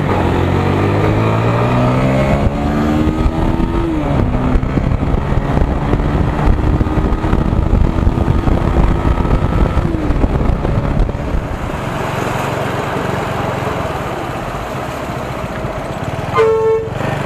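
Motorcycle engine pulling up through the gears under wind noise, its pitch climbing and dropping back at shifts about four and ten seconds in, then running at a steady cruise. A short horn honk comes near the end.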